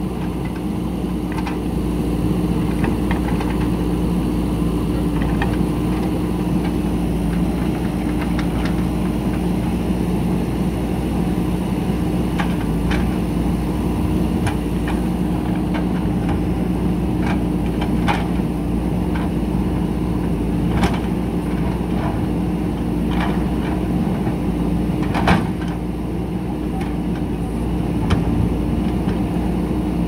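JCB 3DX backhoe loader's diesel engine running at a steady pitch while the backhoe arm digs. Scattered sharp knocks and clanks come from the bucket working against the old bridge's concrete and the earth, the loudest about 25 seconds in.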